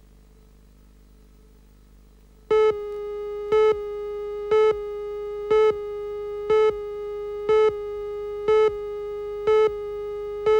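Videotape countdown leader tone: faint hum at first, then a steady tone starts about two and a half seconds in, with a louder beep once a second, nine in all, matching the on-screen countdown. It cuts off abruptly after the last beep.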